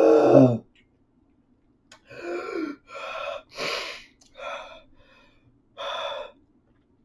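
A man's pained breathing as he suffers the burn of ghost pepper chips: a short groan at the start, then, after a pause, five sharp gasping breaths over about four seconds.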